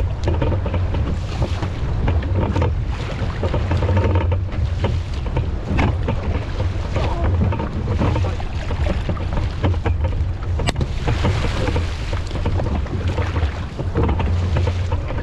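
Wind buffeting the microphone over the wash and slap of choppy sea water against a small wooden dugout canoe as it is paddled along, with a few sharp knocks, the clearest about ten seconds in.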